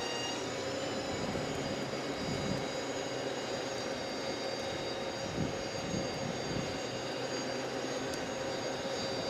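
A utility bucket truck's engine and hydraulics running steadily, with a constant mid-pitched whine and fainter high tones over the engine noise.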